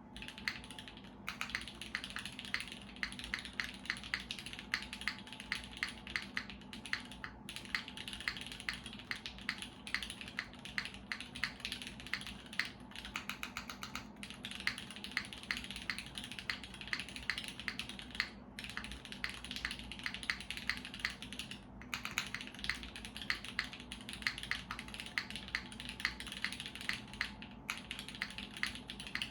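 Continuous fast typing on a SINGA Unikorn R2.1 custom mechanical keyboard. It has lubed Cherry MX2A Black linear switches, an aluminium plate in an O-ring mount and GMK doubleshot ABS keycaps. Rapid keystrokes with a few short pauses.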